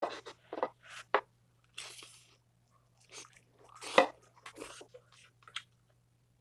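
Close-up eating sounds: spicy instant noodles slurped and chewed, a run of short, irregular wet mouth noises, with the loudest slurp about four seconds in.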